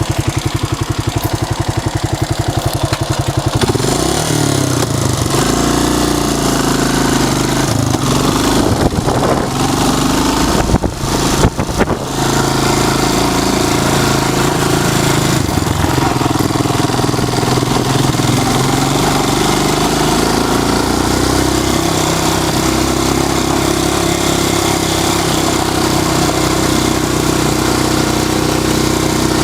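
Honda XL250S's air-cooled single-cylinder four-stroke engine idling with an even, regular beat, then pulling away about four seconds in and running under way, its pitch rising and falling with the throttle. A brief break in the note comes about a third of the way through, before it settles into a steady pull.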